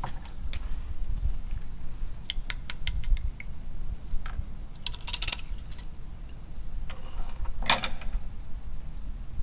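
Small metal clicks and clinks from handling a muzzle-loading pistol barrel and its powder funnel while loading black powder. There is a quick run of about five ticks a few seconds in, a cluster of clicks midway, and one louder knock near the end.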